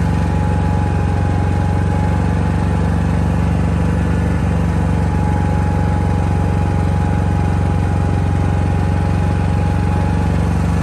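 DuroMax XP4500iH dual-fuel inverter generator running steadily. The engine's hum is even, with a thin steady whine above it and no change in speed.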